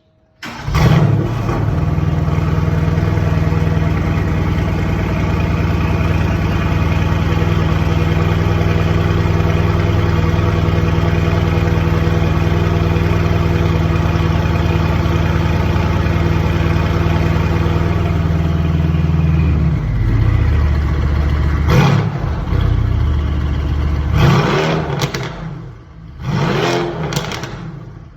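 Mercedes-AMG GT R twin-turbo V8, breathing through aftermarket downpipes and an FI Exhaust X-pipe system, starting up with a sharp flare about half a second in, then holding a steady high idle. Near two-thirds through, the idle drops to a lower note. In the last few seconds there are several short throttle blips.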